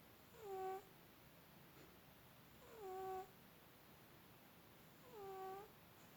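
A sleeping domestic cat snoring: three short pitched snores about two and a half seconds apart. Each dips in pitch and then holds a steady note.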